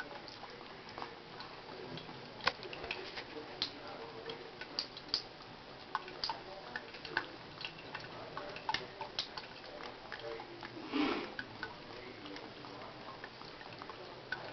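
Tap water running into a bathroom sink while a ferret drinks from the stream, with irregular sharp clicks and a brief louder splash about eleven seconds in.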